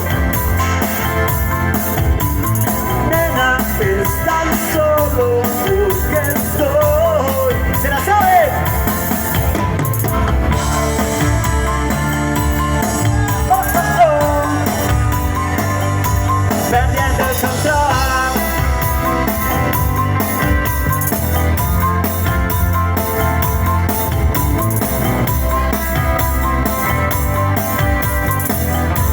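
A rock band playing live, with drums keeping a steady beat, guitar, and a voice singing over it in the first half.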